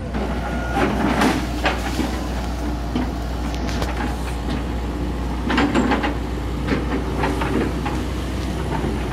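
Komatsu PC78US excavator's diesel engine running steadily under load, with about four bursts of crackling and snapping as its arm breaks branches in a tree canopy.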